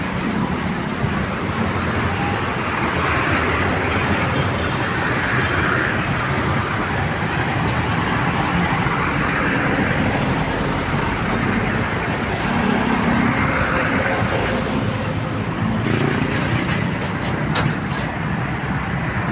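Steady toll-road traffic: cars, trucks and buses passing one after another, their tyre and engine noise swelling and fading in waves.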